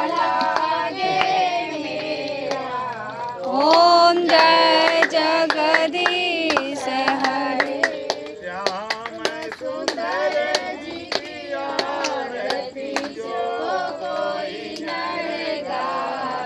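A group of women's and children's voices singing a devotional aarti song together, unaccompanied, with hand claps keeping time throughout.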